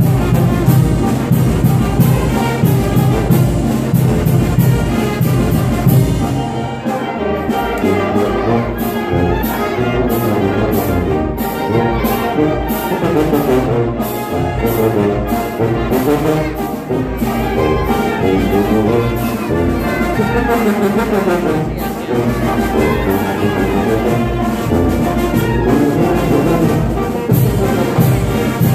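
A brass band plays a dance tune with a steady beat: trumpets and trombones carry the melody over a sustained low bass.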